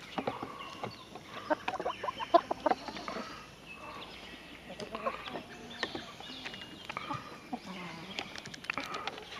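Chickens clucking close by: a quick run of loud clucks about two seconds in, then scattered softer calls.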